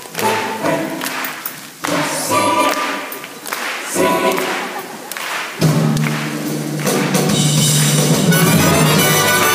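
Stage-musical chorus singing with its accompaniment in short, sharply started phrases. About five and a half seconds in, it swells into a loud, held full chord.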